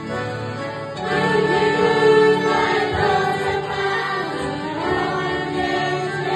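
A children's choir singing a Christian praise song in unison, accompanied by an acoustic guitar; the voices grow louder about a second in.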